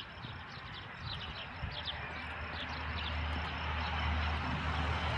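Footsteps crunching on crushed-stone gravel, thinning out after the first couple of seconds, while a steady low hum slowly grows louder.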